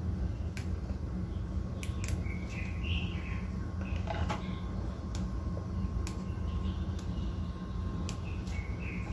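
Fresh basil leaves being picked off their stems by hand: scattered light clicks and snaps over a steady low hum. A few faint bird chirps are heard, about three seconds in and again near the end.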